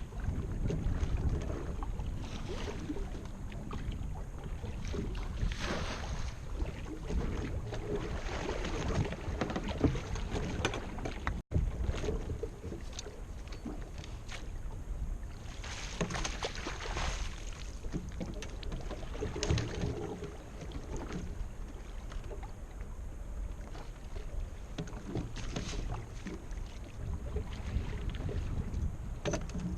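Boat on open water: a steady low rumble of wind and water noise with repeated surges of hiss, cut off for a moment about eleven seconds in.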